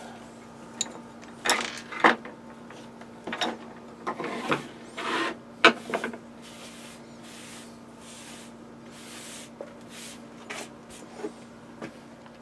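Knocks, clicks and scraping as an old router's opened metal case is handled and the rust and dust are cleaned out of it. About halfway through comes a run of soft, even brushing or wiping strokes, and a few clicks near the end.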